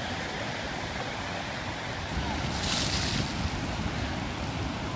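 Surf breaking steadily on the shore; about two and a half seconds in, a bucket of water is dumped over a man's head, a short splash lasting under a second.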